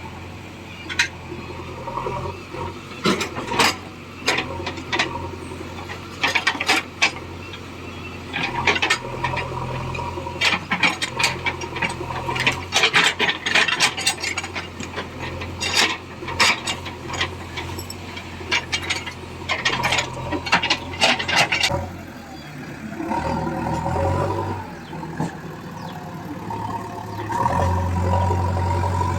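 Diesel engine of a JCB 3DX backhoe loader running steadily, with many sharp rattles and scraping clatter for most of the time. The clatter stops, and near the end the engine sound grows louder and fuller.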